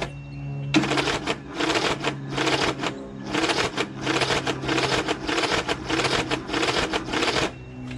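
Electric starter cranking a freshly swapped flathead lawn tractor engine on choke, boosted by a jumper pack. It turns over in a steady chugging rhythm of a few strokes a second without firing, then stops shortly before the end.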